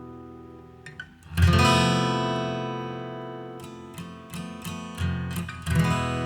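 Background music on acoustic guitar: a strummed chord about a second and a half in rings out slowly, followed by several lighter picked or strummed notes and another chord near the end.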